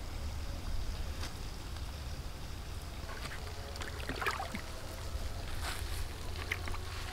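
A steady low wind rumble on the microphone, with a few light splashes and knocks as a metal pot is dipped into the pond to scoop up water.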